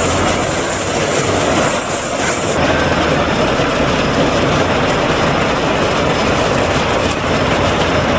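Agronic MR820 round baler-wrapper running off a Fendt Farmer 311 tractor: a loud, dense, steady mechanical clatter. The high hiss drops away about two and a half seconds in.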